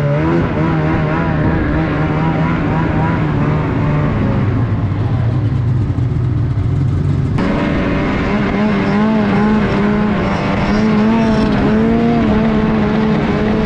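Snowmobile engine running under way, a steady engine note. About seven seconds in it cuts abruptly to a higher engine note that wavers up and down as the throttle changes.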